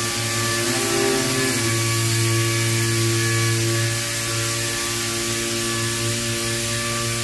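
Steady machine hum with a constant hiss over it.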